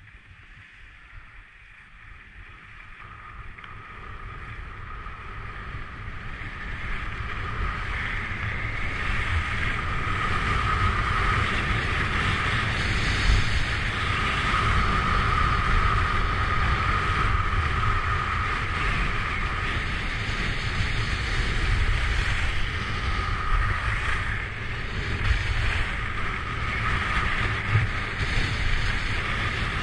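Wind rushing over the microphone together with skis hissing and scraping on hard-packed groomed snow during a downhill run. It grows louder over the first several seconds as speed builds, then stays steady with small swells.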